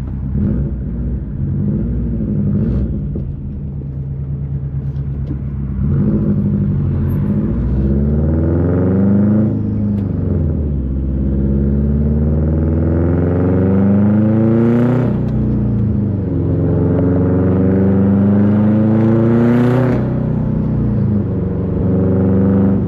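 2005 Subaru Impreza WRX STI's turbocharged 2.5 L flat-four, running through a full titanium Tomei Expreme Ti exhaust with a catless downpipe, pulling away hard: the engine note rises through the gears, dropping back at each of three upshifts. It has a raspy edge from around 3,500 rpm.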